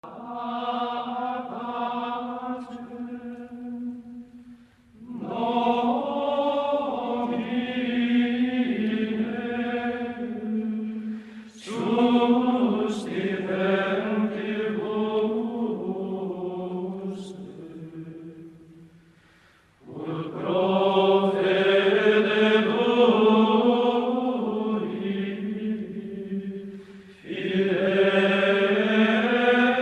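Slow chanted vocal music: voices holding long, wavering notes in phrases of several seconds, each new phrase starting abruptly.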